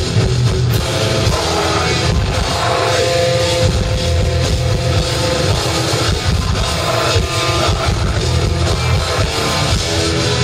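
Live technical death metal band playing loudly: distorted electric guitars with sustained lead lines over a pounding drum kit.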